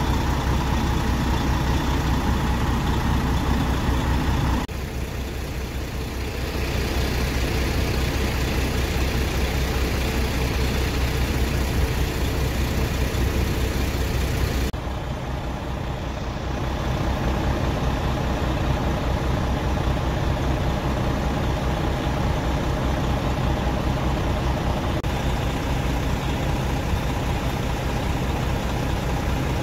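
Fire truck's diesel engine running steadily at idle. The sound changes abruptly twice, about 5 and 15 seconds in.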